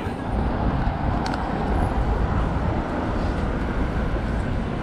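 Steady city street noise: the low rumble of road traffic running past, with a brief click about a second in.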